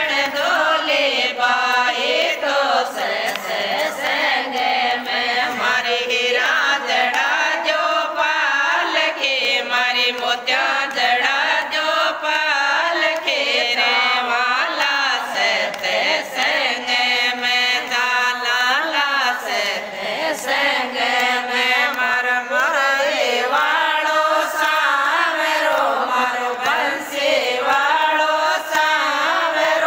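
Group of women singing a Krishna bhajan together, unaccompanied except for hand clapping that keeps a steady beat.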